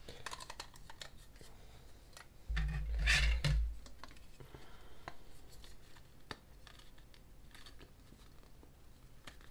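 Hard plastic miniature and plastic base being handled and twisted: scraping, rubbing and knocking of plastic, loudest with a heavy bump about two and a half seconds in, then scattered small clicks as the pegged feet are worked in the base holes.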